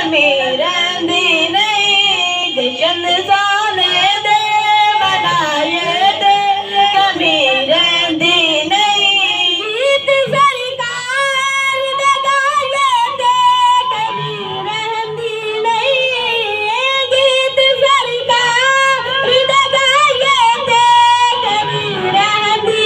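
Boys singing a Punjabi naat into handheld microphones: a continuous, high, melismatic solo line with long gliding and held notes.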